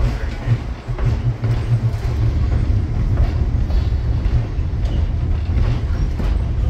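Train car rolling along the track, heard from aboard: a steady low rumble with faint clicks.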